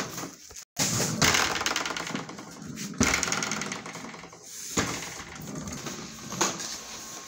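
Plastic ride-on swing car rattling and clattering as it is moved over a hard floor, with sharp knocks about three seconds in and again near five seconds.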